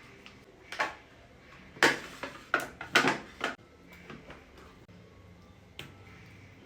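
Kitchen clatter: a run of sharp knocks and bangs from handling pots, dishes and cupboards. The loudest come in a quick cluster between about two and three and a half seconds in, with a last single knock near the end.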